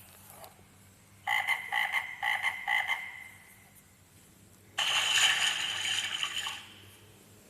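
Recorded frog croaking played through a children's sound book's small speaker: a quick run of about seven croaks, about four a second. About a second and a half later comes a second, longer sound clip from the book.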